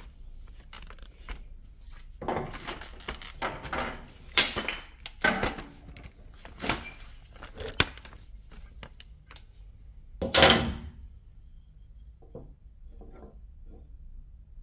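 Wooden parts handled and knocked together: a run of irregular knocks and clatters, then a longer scraping rustle about ten seconds in, and a few light taps after it.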